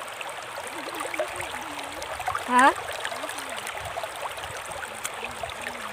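Shallow river water running over rocks, a steady rush. About two and a half seconds in comes a short rising vocal sound from a person, with soft humming before and after it.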